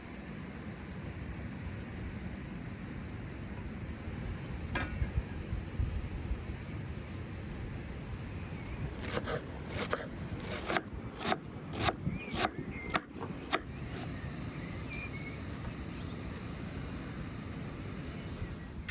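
Steady low outdoor rumble with a quick run of sharp clicks and taps about halfway through.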